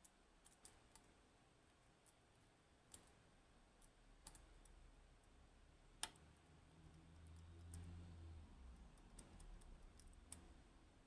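Faint, scattered clicks of a lock pick working the pins of an Assa 600 pin-tumbler lock, with one sharper click about six seconds in.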